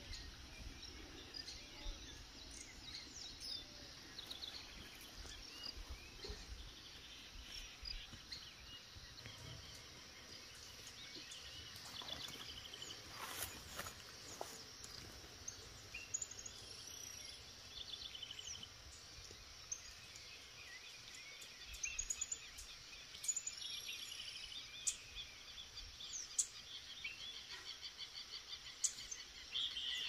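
Several wild birds chirping and singing over a steady background hiss, with short calls and quick trills scattered throughout.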